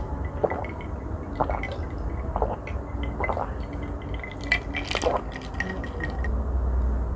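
Close-miked gulps of water from a glass jar, about one swallow a second, with a couple of sharper clicks around five seconds in.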